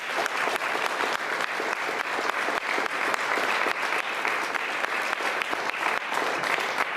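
An audience of a few dozen people clapping steadily in applause, dying away near the end.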